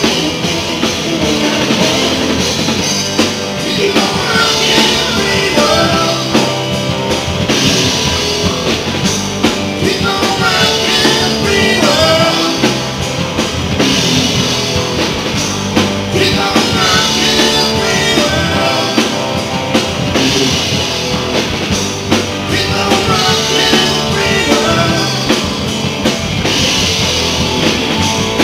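Live blues-rock band playing: electric guitars, bass and drum kit, with a lead voice singing over them.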